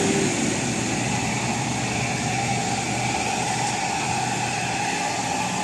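Vehicle engine running steadily with traffic noise.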